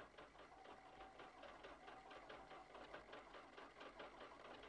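Farm tractor engine chugging faintly in rapid, even beats, about seven a second.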